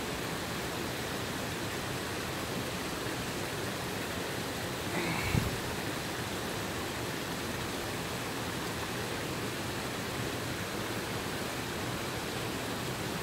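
Small spring-fed stream tumbling down a rocky cascade, a steady rush of running water swollen by heavy rainfall. A brief bump about five seconds in.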